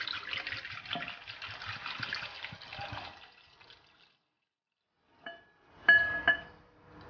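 High-proof baijiu poured from a bottle into a bowl of duck eggs: a steady splashing pour onto the eggs and into the rising liquid, fading out about three seconds in. After a short silence come a few brief ringing tones near the end.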